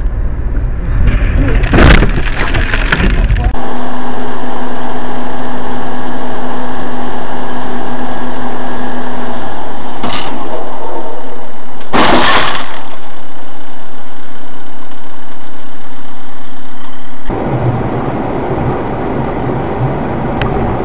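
Dashcam recordings of road traffic: rumbling vehicle and road noise with a sharp crack about two seconds in, then overloaded, distorted audio with two loud crashes around ten and twelve seconds in, the sound of vehicle collisions.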